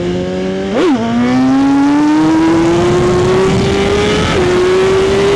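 Motorcycle engine accelerating hard through the gears. It gives a quick rev and drop about a second in, then a long steady climb in pitch that falls sharply at an upshift near the end.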